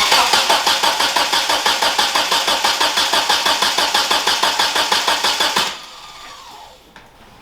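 Car engine cranking on its starter motor in an even rhythm of about five beats a second, without catching, until the starter is released near the end and the sound dies away. In a video about a new fuel pump for a 1991 Eagle Talon, a crank that will not start fits an engine getting no fuel.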